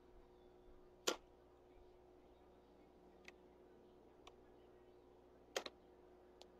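Two sharp smacks, one about a second in and a louder pair near the end, with a few faint ticks between: a color guard practice rifle being tossed and caught in the hands. Otherwise near silence.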